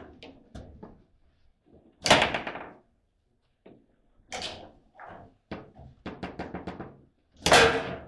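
Table football being played: the ball clacks against the rod-mounted players and the table walls in a series of sharp knocks. There is a hard shot about two seconds in, a quick rattle of small taps later, and the loudest slam near the end.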